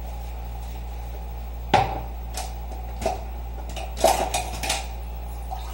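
Glasses and dishes clinking and knocking at a kitchen sink as they are washed and set down. The loudest, sharpest knock comes nearly two seconds in, followed by a few lighter clinks and a quick cluster of knocks around four seconds in, all over a steady low hum.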